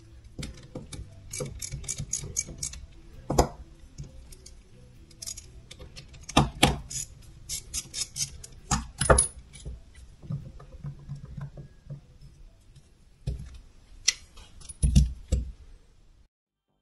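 Metal hand tools clinking and knocking on the workbench, with quick runs of ratchet clicks and several louder clunks, as a ratchet and a puller are set on the A/C compressor's pulley to draw the clutch plate on.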